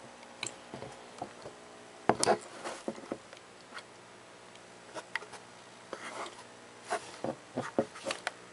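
Handling of the plastic Rubik's Cube alarm clock: irregular light clicks, taps and knocks as it is turned and moved in the hand, the loudest about two seconds in.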